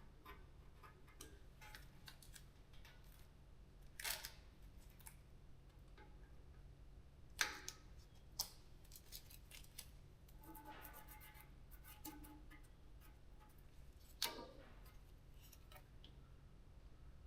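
Faint scattered clicks and knocks of hand work over quiet room hum, with a few louder sharp sounds about 4, 7 and 14 seconds in.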